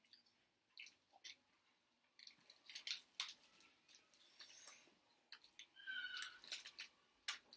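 Faint scattered clicks and wet smacks of eating momos at close range, with a short high-pitched call about six seconds in.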